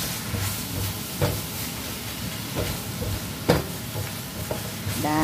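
Stir-frying in a nonstick wok: a steady sizzle and hiss, with the spatula scraping and knocking against the pan every second or so. The sharpest knock comes about three and a half seconds in.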